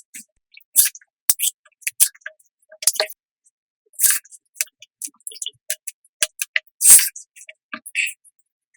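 Close-miked eating sounds: sharp clicks and short crunches of chewing, coming in irregular bursts with brief pauses between, the loudest about four and seven seconds in.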